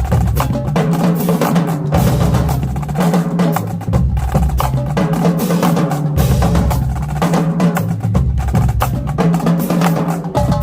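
High school marching drumline playing a loud cadence: rapid snare and tenor drum strokes over tuned bass drums, whose low notes shift in pitch in repeating figures.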